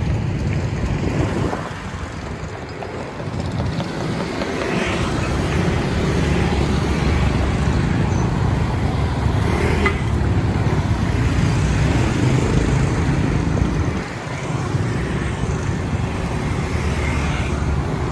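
Road traffic passing, a steady mix of motorbike and car engines and tyres, easing off briefly about two seconds in and again near the last few seconds.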